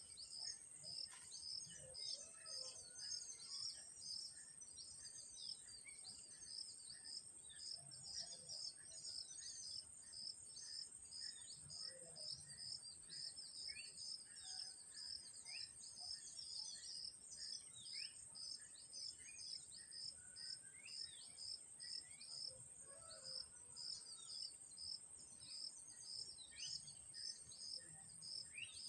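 Outdoor insect chorus: a steady high-pitched drone with a short chirp repeating about two to three times a second. Scattered brief bird calls sound over it.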